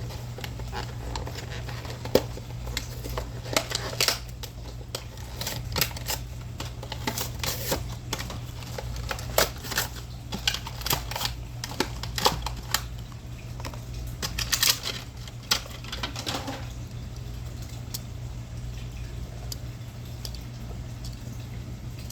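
Plastic blister packaging of a die-cast toy car being handled and pried open: irregular clicks, snaps and crackles that stop about sixteen seconds in. A steady low hum runs underneath.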